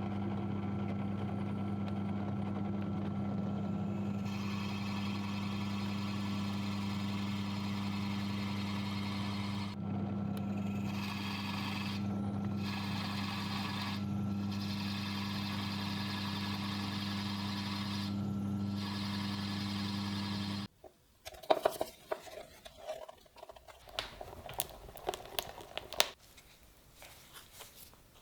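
An electric power tool's motor runs with a steady hum. From about four seconds in, a hiss of abrasive work on the steel blade joins it and drops out briefly a few times. The motor cuts off suddenly about two-thirds of the way through, and scattered clicks and knocks of handling follow.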